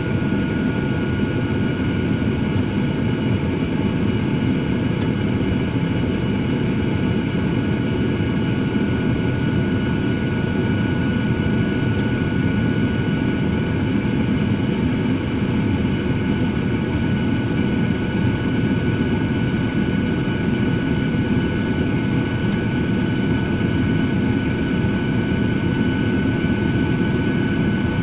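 Cosori 13-quart air fryer oven running: its convection fan blows a steady whoosh, with a thin constant high whine over it.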